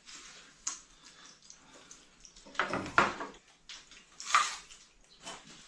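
Eating noises at a table: chewing and crunching with small clicks, and two louder bursts about three and four and a half seconds in.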